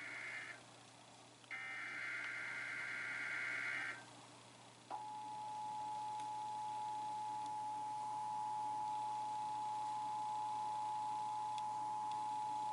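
Emergency Alert System SAME header data bursts: one ends just after the start and a second runs about two and a half seconds. About five seconds in, the steady two-tone EAS attention signal begins and holds for about eight seconds. Together they open an EAS Required Monthly Test broadcast.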